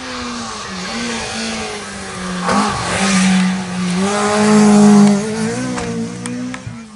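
Rally car coming flat out down the stage and passing close by, its engine revving hard. The engine note breaks briefly about two and a half seconds in as it changes gear, is loudest around five seconds in as the car goes by, then eases away.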